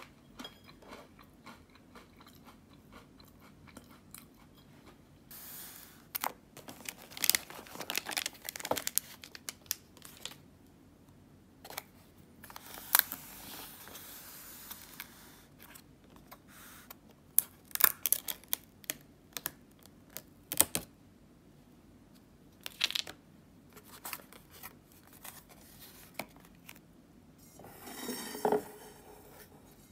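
Paper lid of an instant yakisoba cup being handled and torn: scattered rustles, crinkles and sharp clicks with quiet gaps between. Near the end, a short rush of water as the cup is tipped to drain through the slits in the lid.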